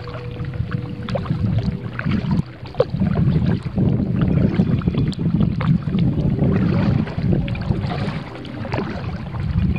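Wind rumbling on the microphone while two paddlers stroke a tandem kayak, with scattered small splashes and drips from the paddle blades.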